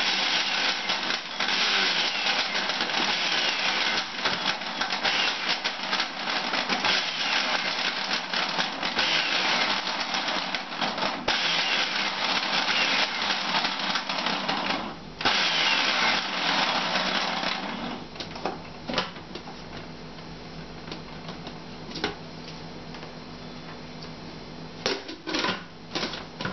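Electric juicer used as a blender, its motor running loudly as it chops carrot pieces. It stops briefly about 15 seconds in, runs again for a couple of seconds and then stops, leaving a few knocks of the machine being handled.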